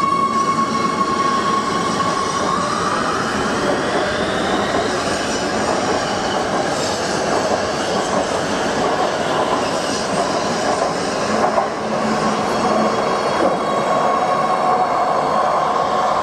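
Oslo T-bane MX3000 metro train with a steady electric whine that rises in pitch about two and a half seconds in, as the train's traction motors start to pull. Dense rail running noise follows, with wheel squeal, and another rising whine near the end.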